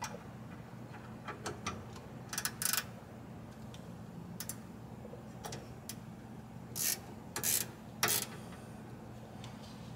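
Hand ratchet clicking in short strokes while snugging down the bolts of a sway bar end link, with a few light metal clicks between strokes. A low steady hum runs underneath.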